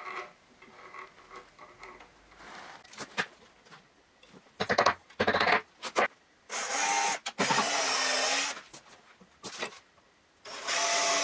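Electric drill-driver motor running in several short bursts, the longest about two seconds near the middle and another near the end, driving screws into wood. Quieter handling and tapping come before the first burst.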